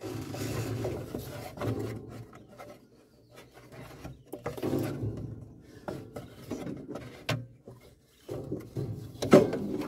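Rubbing and scraping of a new rubber fan belt being worked by hand over an excavator's engine fan blades behind the wire fan guard, in uneven strokes with short pauses and scattered light knocks. A sharper knock comes near the end.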